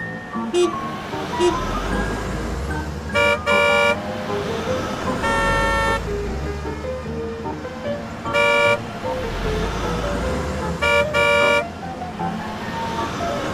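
Cartoon car horns tooting several times: two quick toots, a longer toot, a short one, then two more quick toots, with low engine-like rumbles between them. Light background music plays underneath.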